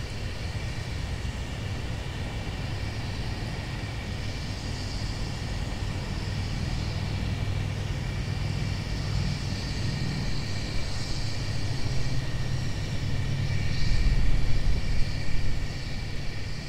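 Southern Railway 630, a 2-8-0 steam locomotive, heard working in the distance as a steady low rumble that slowly builds. It grows louder and more uneven near the end.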